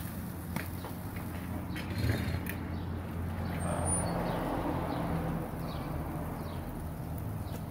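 Outdoor background: a steady low hum, with a few light clicks and knocks in the first couple of seconds and a few faint high chirps later on.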